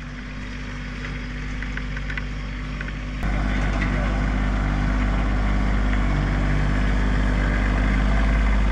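Kioti CK2610 compact tractor's diesel engine running steadily, with a sudden step up in loudness about three seconds in.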